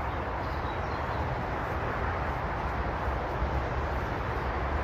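Steady rush of motorway traffic noise.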